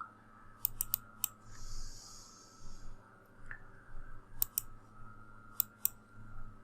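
Computer mouse clicks: short, sharp clicks in quick pairs and small groups, over a faint steady hum, with a brief soft hiss about two seconds in.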